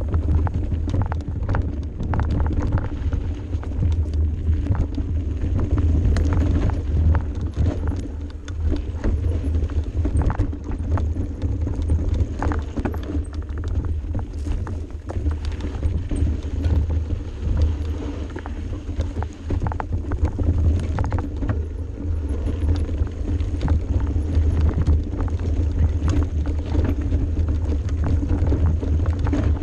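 Mountain bike descending a steep dirt single track, heard from a camera mounted on the bike: a steady low rumble of the ride, with constant clicks and knocks as the bike rattles over the rough trail.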